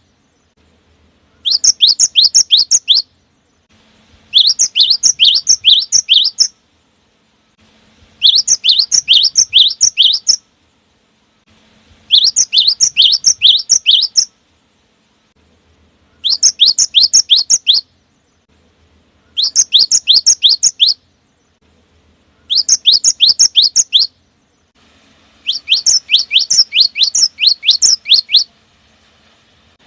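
Cinereous tit (gelatik batu) singing a loud, fast song of sharp, high sweeping notes. It comes in repeated bursts of about two seconds each, separated by short pauses, eight bursts in all.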